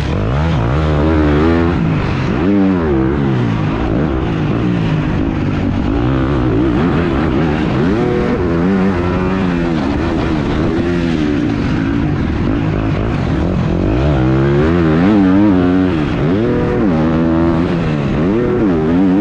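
Husqvarna motocross bike's engine at racing revs, its pitch climbing and dropping again and again as the throttle is opened and shut, heard close up from a GoPro on the rider.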